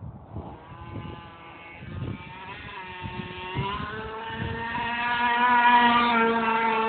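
Gas-powered RC car's small two-stroke engine accelerating: its buzzing note climbs in pitch about three seconds in, holds high and grows louder, then drops away at the very end.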